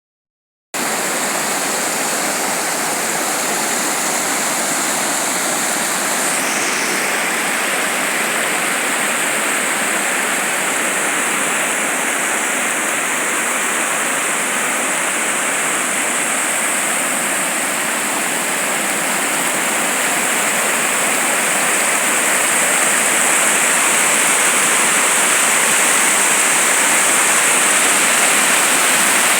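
Heavy rain falling steadily, a constant dense hiss that starts just under a second in and grows slightly louder in the last third.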